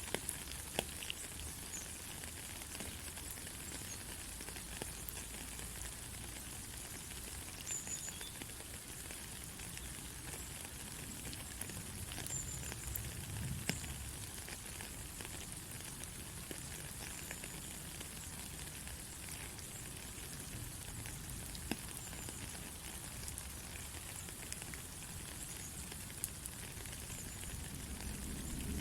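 Steady rain falling: a constant hiss dotted with many small, crisp drop ticks.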